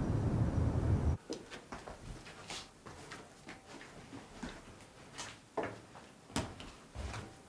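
Hands pressing and patting a lump of clay on a wooden board while hand-forming a Raku tea bowl: soft, irregular pats and taps, a few heavier thuds near the end. A steady outdoor rumble cuts off about a second in.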